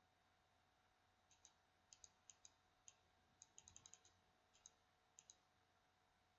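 Faint computer mouse clicks, many in quick pairs, starting a little over a second in, with a rapid run of clicks in the middle.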